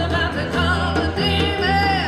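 Live band playing a song: a woman singing with vibrato, with a long held note near the end, over acoustic guitars and electric bass.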